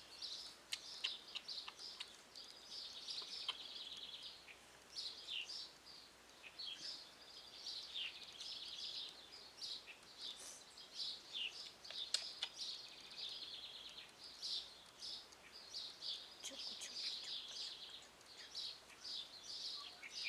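Songbirds chirping and singing: many short high chirps with a few rapid trills now and then.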